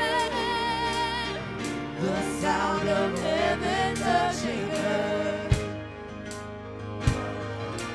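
Live worship music: voices singing a wavering melody over sustained keyboard chords, the singing dropping away about halfway through. Two sharp drum hits stand out near the end.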